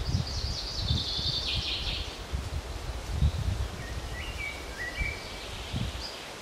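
Wind buffeting the microphone in uneven low gusts, with songbirds singing: a high chattering song in the first two seconds, then a short phrase of stepped whistled notes about four to five seconds in.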